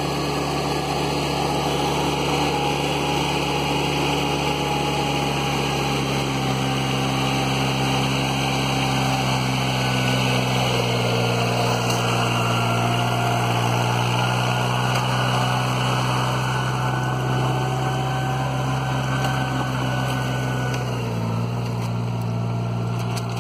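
Ride-on rice transplanter's engine running steadily as the machine drives and plants through a flooded paddy.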